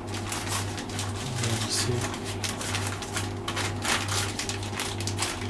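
Plastic piping bag rustling and crinkling as it is handled, with irregular small clicks and scrapes, over a steady low hum.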